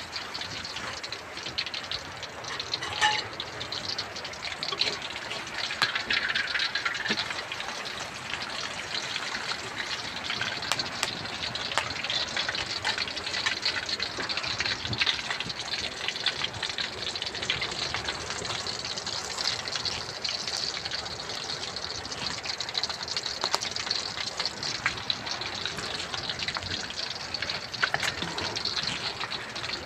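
Banana fritters deep-frying in a wok of hot oil over a wood fire: a steady sizzle with scattered pops and crackles.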